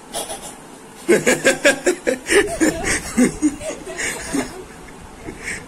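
A girl laughing: a run of quick chuckles starting about a second in and dying away after about three seconds.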